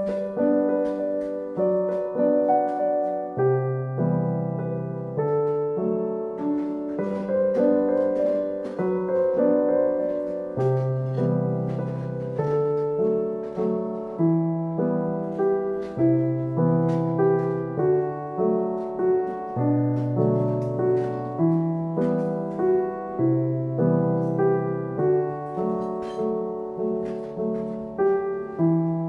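Background piano music: a gentle piece of held chords over a slowly changing bass, with a steady pulse of note attacks.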